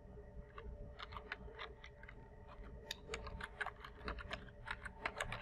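Computer keyboard being typed on, faint: a few scattered key presses at first, then a quicker, irregular run of keystrokes from about halfway as an email address is entered.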